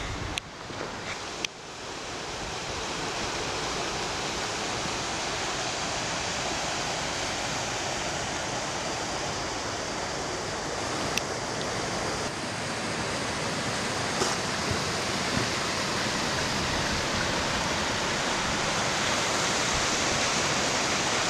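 Styhead Gill, a boulder-strewn mountain stream, rushing over rocks and small cascades as a steady wash of water noise. It comes up within the first couple of seconds, after a few handling knocks, and grows a little louder toward the end.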